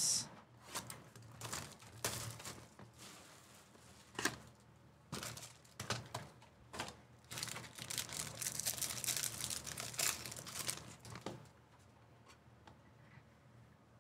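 Hands working a Bowman baseball card box with scattered rustles and clicks, then the foil wrapper of a trading-card pack crinkling and tearing open for a few seconds past the middle.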